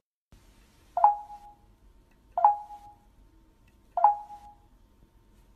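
A bell-like ding sounds three times, evenly spaced about a second and a half apart, each identical strike ringing out briefly and fading.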